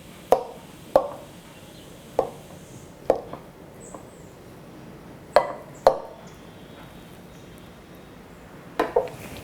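A knife cutting through a soft bread pudding in its bowl, the blade knocking against the bowl in about seven short, sharp knocks at uneven intervals, two of them close together around the middle.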